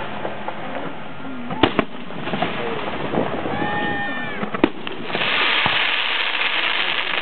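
Aerial fireworks shells bursting overhead, with sharp bangs about a second and a half in and again about four and a half seconds in. A dense, steady hiss follows from about five seconds on.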